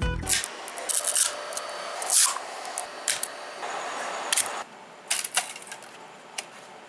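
Freshly 3D-printed PLA parts being pried loose: irregular scraping and crackling of plastic, with sharp snaps about 1, 2, 3, 4.4 and 5.2 seconds in.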